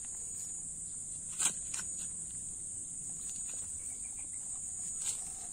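Steady high-pitched chirring of insects, with a few light clicks and rustles from hands handling a tie about a second and a half in and again near the end.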